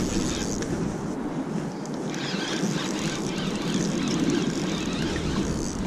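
Gusty wind buffeting the microphone as a steady rumbling rush with hiss, rising and falling a little.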